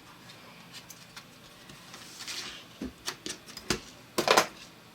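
Small clicks and taps of Mac mini G4 internal parts being handled during reassembly, with a few louder knocks about three to four and a half seconds in.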